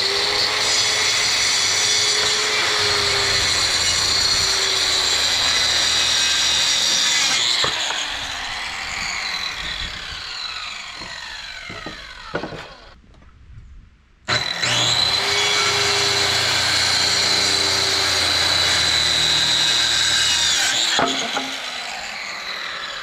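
DeWalt circular saw crosscutting wooden planks, twice. Each cut is a steady loud whine of the blade under load for about seven seconds, then a falling whine as the blade spins down once the trigger is released. The second cut starts about fourteen seconds in, after a short quiet gap.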